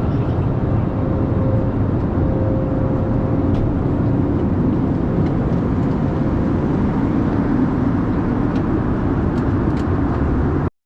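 Steady cabin noise of an Airbus A321neo in cruise: an even roar of airflow and engines, with a few faint clicks. The sound cuts out for a moment at the very end.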